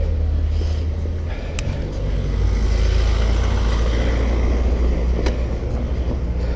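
Wind rumbling on the microphone of a cyclist riding along a street, mixed with traffic noise from a car that swells around the middle. Two sharp clicks come about a second and a half in and again near the end.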